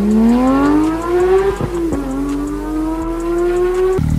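Porsche 992 GT3's 4.0-litre flat-six, through an Fi Exhaust valved catback, accelerating hard away. The pitch climbs steeply, drops at an upshift about two seconds in, then climbs again. Just before the end the sound changes abruptly to a lower, steady engine note.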